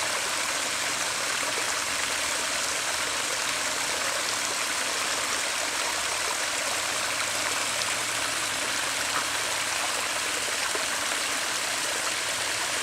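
Steady rush of water pouring over a pond spillway after rain.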